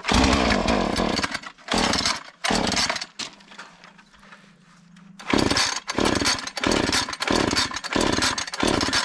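Two-stroke chainsaw being pull-started, its engine firing in short bursts that cut out again rather than running steadily: a longer burst at the start, two short ones, a pause, then a quick run of about six bursts. It is hard-starting and takes several pulls.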